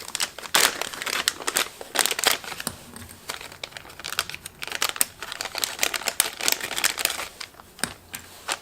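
Packaging crinkling and rustling in a dense, irregular run of crackles as parts are unwrapped and handled by hand.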